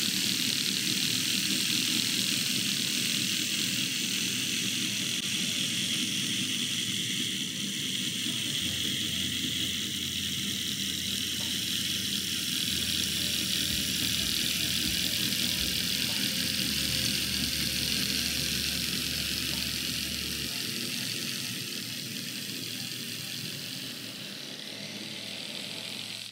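Small electric motor and gearing of a Hornby 00 gauge L.M.S. Class 5 model locomotive running steadily, a continuous high whirring hiss that eases a little near the end.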